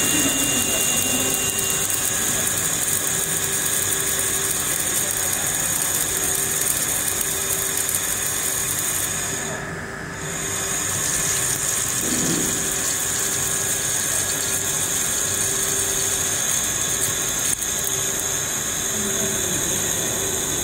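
Wire-cut EDM machine running a cut, with coolant flowing over the workpiece: a steady hiss over a low steady hum. The hiss dips briefly about ten seconds in.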